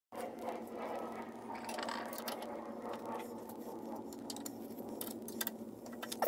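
Faint metallic clinks and scraping from a wrench and a flat steel bar on the change gears of an early-1950s Sheldon lathe, the bar held against the gear teeth to keep the train from turning while the gear's nut is loosened. A steady faint hum lies underneath, and the clicks come more often near the end.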